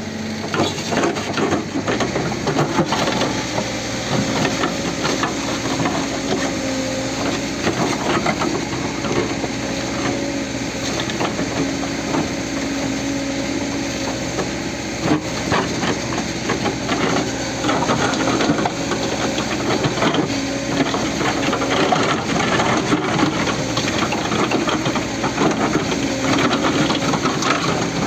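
CAT 434E backhoe loader's diesel engine running hard, its pitch stepping up about two seconds in and then holding steady under load. Irregular clatter and knocks of rock and soil run through it.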